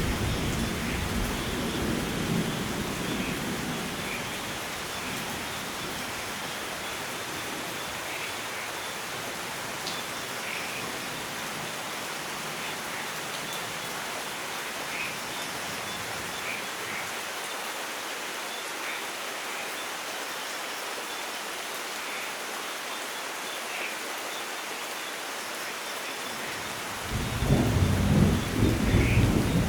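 Steady light rain, with short bird chirps scattered through it. A thunder rumble dies away over the first few seconds, and another rolls in suddenly near the end.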